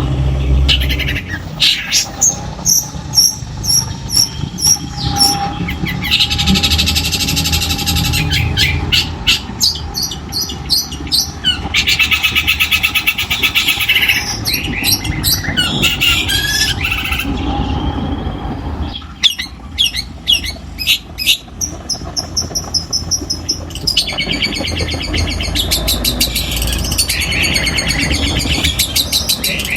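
Long-tailed shrike (cendet) singing a loud, varied song of rapid repeated high notes, fast trills and harsher rasping phrases, full of imitations of other birds' songs, with a short pause about two-thirds of the way through.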